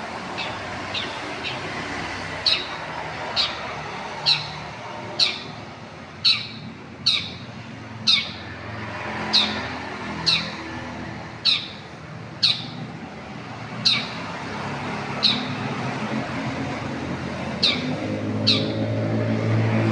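Long-tailed shrike (cendet) calling in a long series of short, sharp notes, each falling in pitch, about one a second. A low traffic rumble runs underneath and grows louder near the end.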